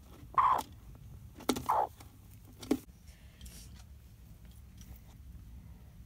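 A hen clucking: two short calls about a second apart, then a sharp click.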